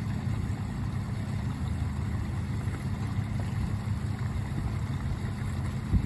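Small outdoor rock waterfall spilling into a landscaped pond: a steady rush of falling water over a continuous low rumble and hum.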